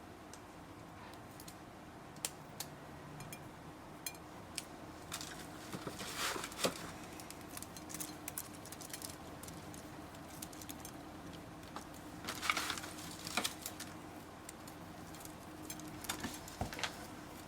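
Slime being squeezed and pulled by hand: scattered sticky clicks and crackles, with busier clusters about six seconds in and again around twelve to thirteen seconds, over a faint steady hum.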